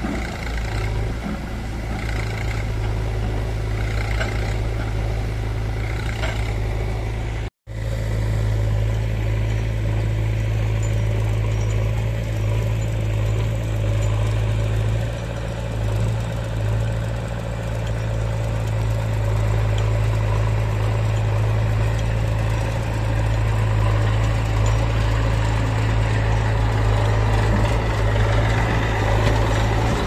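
Massey Ferguson tractor's diesel engine running steadily with a low, even hum. It breaks off for an instant about seven and a half seconds in.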